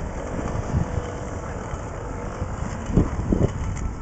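Roller-skate wheels rolling over pavement: a steady low rumble, with a few short knocks about three seconds in.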